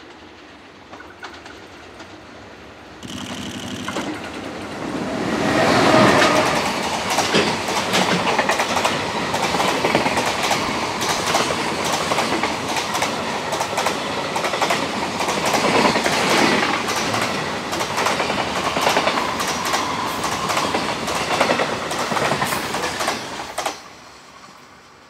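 EH500 electric locomotive hauling a long container freight train running through without stopping. The sound swells as the locomotive comes up and is loudest about six seconds in. The container wagons' wheels then clatter steadily over the rail joints until the last wagon passes and the sound drops away sharply near the end.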